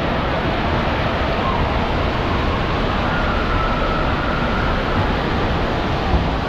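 Steady din of a water park: rushing, splashing water with faint distant voices mixed in, with no single event standing out.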